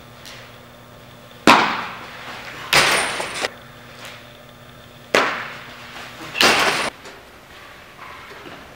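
Two sharp pops of a baseball smacking into a catcher's mitt, each ringing out with a long echo in a large indoor hall. About a second after each pop comes a short burst of rushing noise that stops abruptly.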